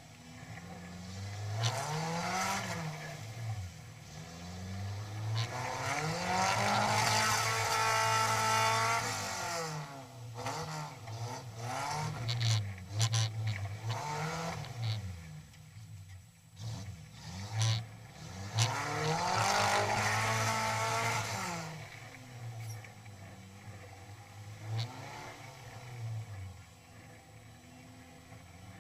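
Engine of a modified off-road 4x4, heard from on board, revving up and dropping back again and again, with two long hard pulls to high revs. Sharp knocks and clatter from the vehicle come through in the middle, between the pulls.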